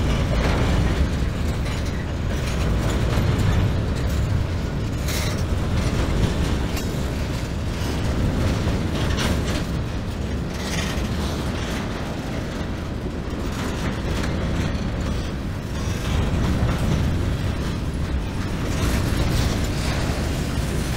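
Covered hopper cars of a long freight train rolling past: a steady rumble of steel wheels on rail, with scattered clanks from the cars' running gear.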